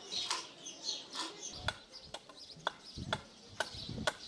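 Axe hewing a timber beam by hand: sharp strikes about two a second, starting a second and a half in, with birds calling in the background.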